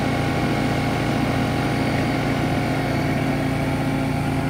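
An engine running steadily at a constant speed, with an even, unchanging hum.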